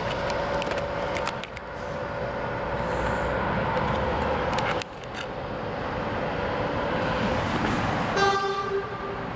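City street traffic: a steady rumble of passing vehicles, with a short car horn toot near the end.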